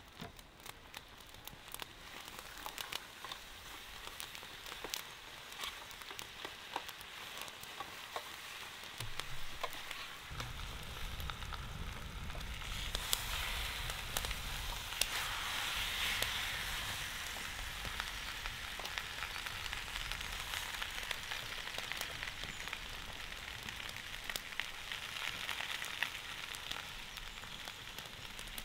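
Beef sizzling and crackling as it cooks, with many small pops, growing louder about halfway through. A low rumble joins about a third of the way in.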